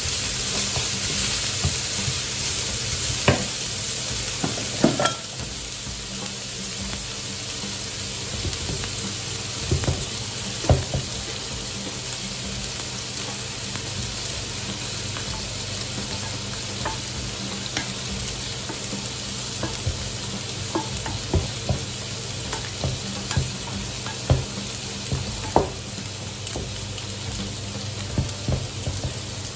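Diced bacon sizzling in a frying pan, louder for the first five seconds and then softer, with scattered light knocks of a wooden spoon against the pan as it is stirred.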